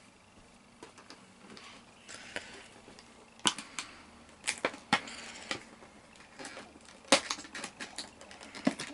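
Plastic toy packaging being handled and prised open by hand: scattered sharp clicks and snaps with short bursts of rustling between them, the loudest snaps about three and a half, five and seven seconds in.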